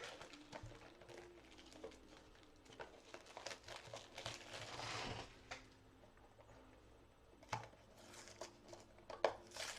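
Faint crinkling and tearing of Funko Mystery Minis blind-box packaging as it is opened, loudest in the middle, with a couple of small sharp clicks near the end.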